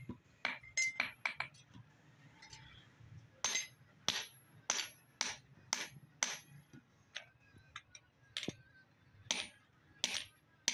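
Hand hammer striking a hot basula (carpenter's adze) head on an anvil, sharp ringing metal-on-metal blows while it is forged back into shape. A quick burst of lighter strikes, a short pause, then a steady run of about two blows a second that thins out near the end.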